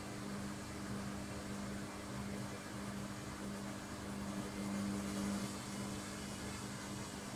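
Washing machine on its spin cycle: a steady motor hum over the rushing of the spinning drum, swelling a little about five seconds in.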